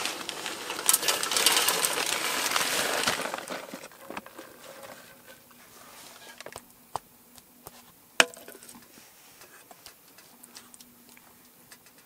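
Breakfast being handled and cooked over a camp stove: a crackling, hissing rustle for about three seconds, then quieter handling with scattered light clicks and one sharp knock about eight seconds in.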